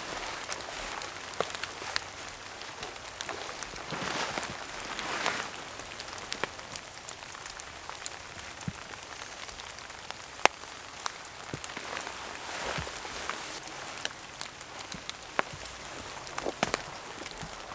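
Heavy rain falling steadily, with many close drops ticking sharply over the hiss; the rain swells briefly about four to five seconds in.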